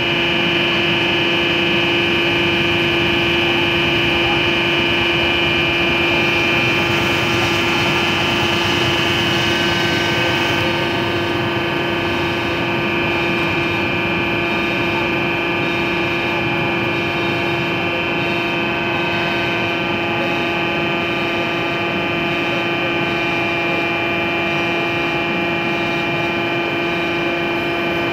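Hydraulic test bench's pump unit running steadily with a continuous hum and a high whine, pushing a telescopic hydraulic cylinder out on its extension stroke.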